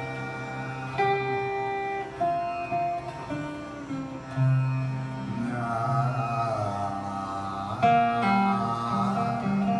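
Duo of slide-played string instruments, a dobro and a long-necked lap slide instrument, playing held notes that bend and glide between pitches, with a sharp plucked attack about eight seconds in.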